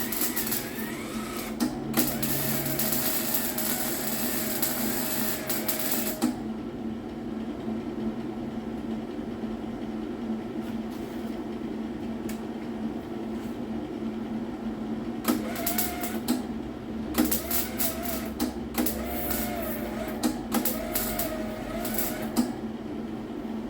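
Welding on a car's steel body panel in two spells of crackling arc, the first lasting about six seconds and the second starting about fifteen seconds in and running some seven seconds, over a steady low hum.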